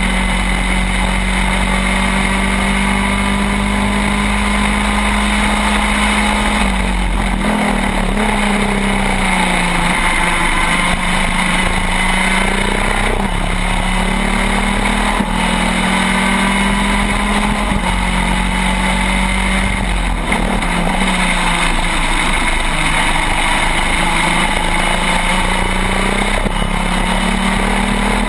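Shifter kart's two-stroke engine at high revs, heard from on board the kart. The engine note dips briefly several times and climbs straight back, as it does through the gears on a flying lap.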